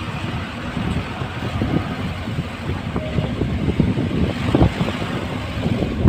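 Tata Sumo SUV driving slowly over a rough dirt road, heard from inside the cabin: steady engine and road rumble with uneven low thumps from the bumps.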